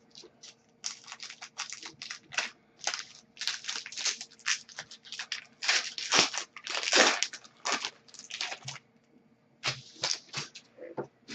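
Hockey card pack wrapper crinkling and tearing as it is handled and opened, in a long run of quick irregular crackles with a brief lull near the end.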